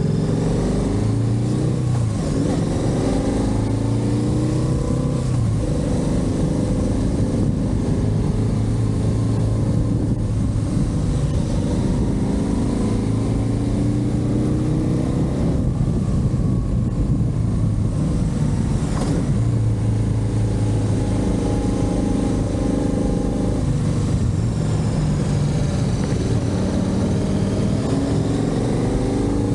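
Motorcycle engine running on the move, its pitch rising and falling repeatedly as it accelerates and eases off, over a steady rush of wind and road noise.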